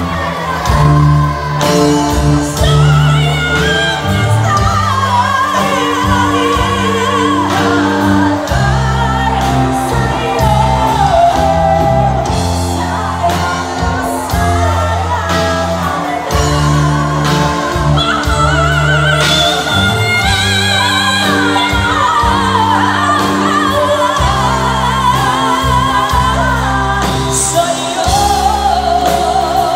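Live band performing: a female lead singer singing with a wavering vibrato, backed by other female voices, electric guitar, keyboards and drums, loud throughout.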